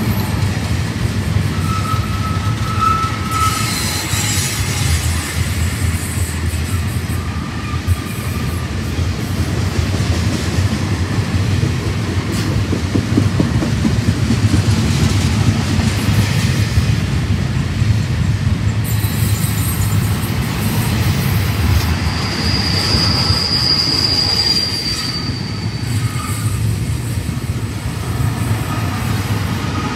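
Double-stack container train's well cars rolling past on a curve: a steady rumble and rattle of wheels on rail. Brief squeals come from the wheels, and one stronger high-pitched squeal lasts about three seconds past the middle.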